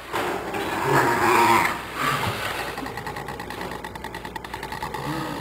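Small dog growling, a continuous low rumble that turns into rapid pulsing after about two seconds.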